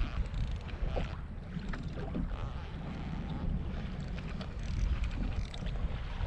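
Wind buffeting the microphone over water lapping against a kayak hull, with scattered faint knocks.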